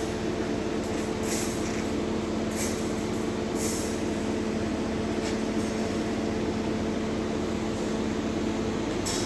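A steady machine drone with a constant low pitch, broken by several short hisses in the first few seconds.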